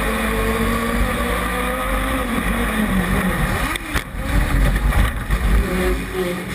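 An engine running, its pitch rising and falling over a heavy low rumble, with a brief dip and change in the sound about four seconds in.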